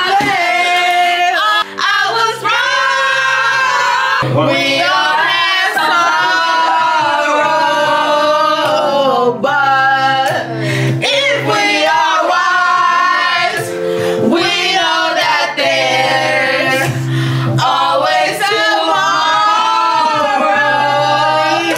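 A group of people singing loudly along to a song, over the music's steady bass line.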